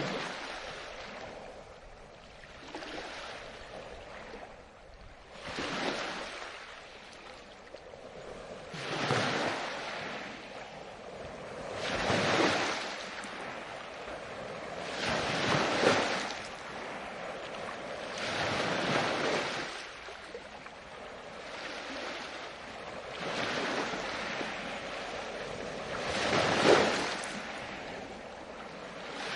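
Ocean waves breaking and washing in, one surge of rushing water about every three seconds, the loudest near the end.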